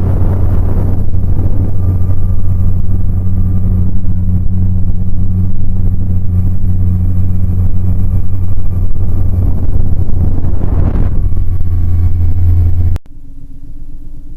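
Vehicle engine running steadily, a strong low hum under a rushing wash of air noise that swells a second in and again near the eleven-second mark. About thirteen seconds in it cuts off abruptly, leaving a much quieter, lower hum.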